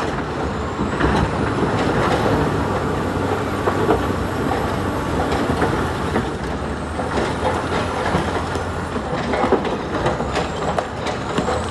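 Heavy diesel machinery running steadily, with frequent irregular knocks and clatter on top of the engine hum.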